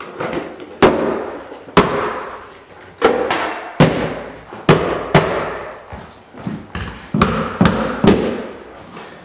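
Hammer driving the nails of a carpet tack strip into the floor: about a dozen sharp strikes at uneven intervals, each with a short ringing decay.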